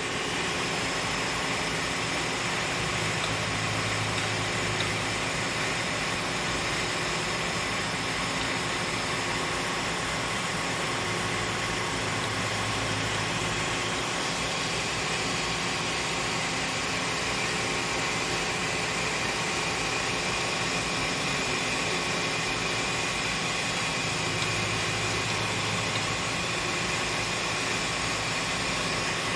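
3-axis CNC milling machine running a continuous scallop finish toolpath: a steady spindle and cutting hum with a few thin steady tones, and a low hum that swells and fades three times as the axes move.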